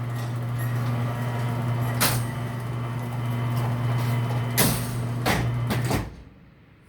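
Stanley garage door opener running with a steady hum as it drives the sectional door along its tracks, with a few sharp clunks from the door along the way. The motor stops about six seconds in.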